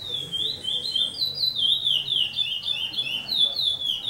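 A caged songbird singing a fast, unbroken song of clear whistled notes that slide downward in pitch, several notes a second.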